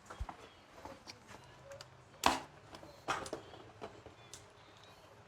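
Scattered clicks and knocks of hand tools and bolts being handled, with two louder sharp knocks a little over two seconds and about three seconds in.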